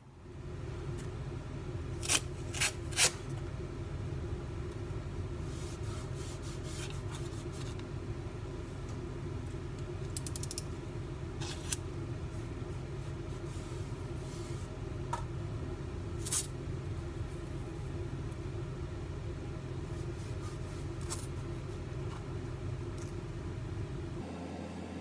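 Steady low room rumble with a few sharp clicks and scrapes from masking tape and a snap-off utility knife being handled on a paper-covered board, three clicks in quick succession about two seconds in.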